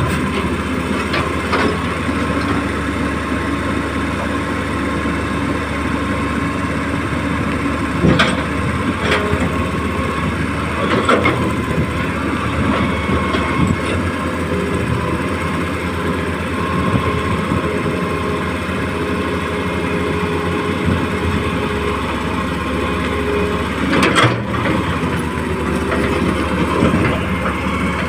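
Motors of a radio-controlled model excavator running steadily, with shifting whining tones as it works, and a few sharp knocks about 8, 11 and 24 seconds in.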